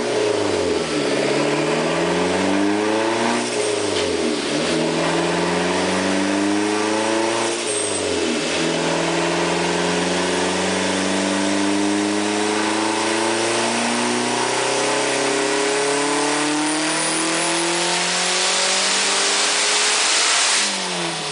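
Dodge Neon SRT-4's turbocharged 2.4-litre four-cylinder engine at full throttle on a chassis dyno. The pitch rises and drops back three times in the first eight seconds as it shifts up, then climbs steadily for about twelve seconds in one gear before the throttle is lifted near the end.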